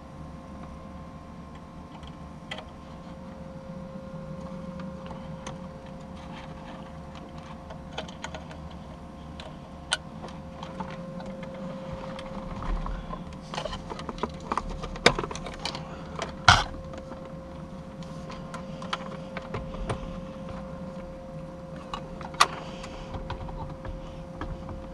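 Scattered plastic and metal clicks, taps and knocks from handling wiring and fitting an aftermarket double-DIN car stereo into the dashboard's radio opening, with a few sharper knocks about halfway through, over a steady low hum.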